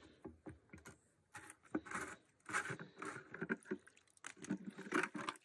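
Dirty water sloshing in the tank of a small carpet-cleaning wet vacuum as it is handled, with irregular scrapes and knocks of the plastic unit.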